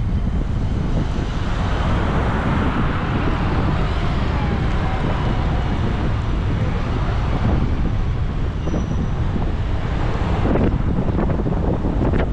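Wind buffeting the microphone of a camera moving along a city bike lane, over steady road traffic noise. The traffic swells louder between about two and five seconds in.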